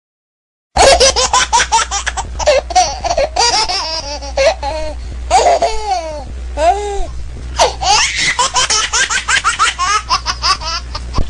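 Loud, high-pitched laughter in rapid bursts, starting abruptly about a second in after dead silence, over a steady low hum.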